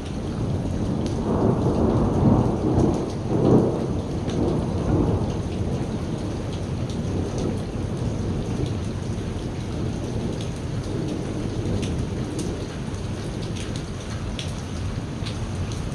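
Steady rain falling, with a rumble of thunder that builds in the first few seconds, is loudest about three seconds in, then fades back under the rain. Sharp drop ticks sound here and there.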